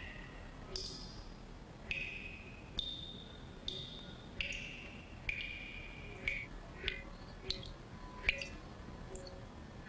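Quiet film score of single high, bell-like notes, one about every second at changing pitches, each ringing briefly. A few sharp ticks fall among them in the second half.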